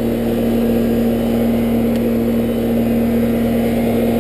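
A 16-year-old central air conditioner's outdoor condensing unit running, with the compressor and condenser fan giving a steady hum. The unit is back up and cooling after a failed capacitor was replaced.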